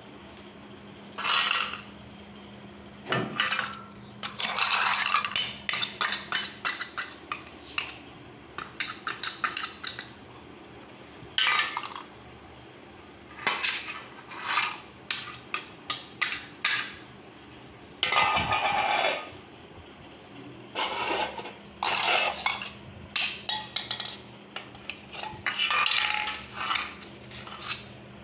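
A small child banging and scraping metal pots and utensils as makeshift instruments, in irregular bursts of clattering and quick strikes, over a faint steady low hum.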